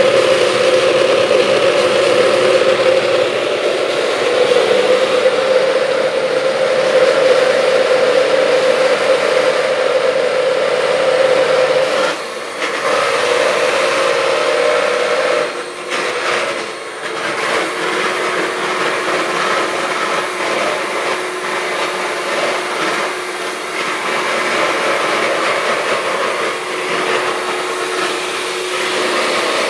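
Electric hand mixer whipping in a plastic bowl, a steady loud motor whir. It drops out briefly twice near the middle, then runs on at a slightly lower pitch.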